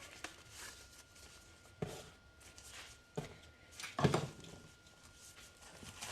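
A few scattered knocks and clatters of kitchen utensils and a bowl being handled on a counter, the loudest about four seconds in.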